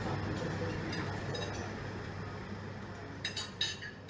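Restaurant tableware clinking: a few sharp clinks of cutlery and glass on dishes near the end, over a steady low background hum of the dining room.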